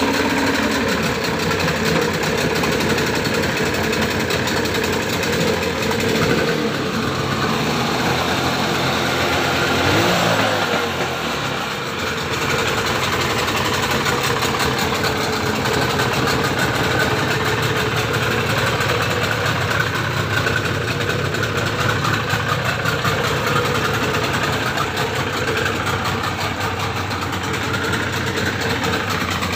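Yamaha 25 hp Enduro two-stroke outboard motor running steadily at idle, with its propeller churning a test barrel of water. About ten seconds in, the engine speed dips briefly, then it settles back to a steady run.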